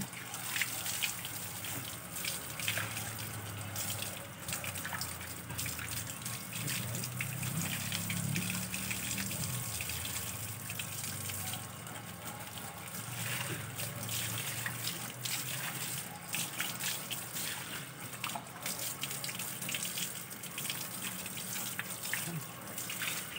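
Water from a garden hose running and splashing onto a concrete floor and a wet dog's coat, with scattered sharper splashes.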